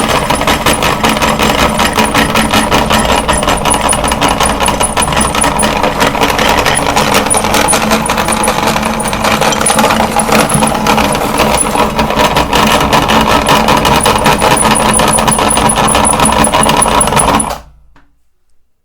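Electric meat grinder running under load as it grinds chalk, a loud steady motor hum with a rapid rattle, cutting off suddenly near the end.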